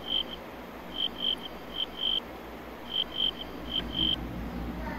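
Cricket chirping: short chirps at one steady high pitch, in groups of two or three, repeating about once a second over a low hum.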